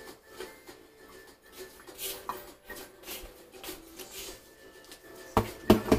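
Short clicks and rustles of things being handled on a table, over faint background music, with two loud knocks near the end.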